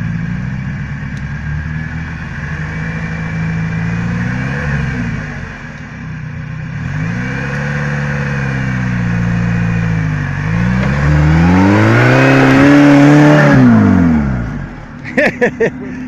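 Off-road trial buggy's engine revving hard three times, the pitch climbing and then dropping each time, as the vehicle climbs out of a muddy ditch. The last rev, about three-quarters of the way in, is the longest and loudest, and a few short sharp knocks follow just before the end.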